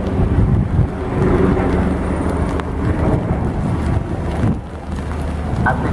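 Wind buffeting the microphone over a steady low rumble from a train approaching the station.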